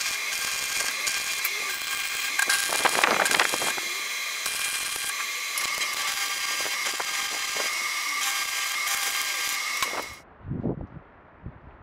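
Stick welding arc crackling and hissing steadily as ribbed steel bar is welded into a steel car rim, louder for a moment about three seconds in. The arc cuts off suddenly about ten seconds in, followed by a couple of low thumps.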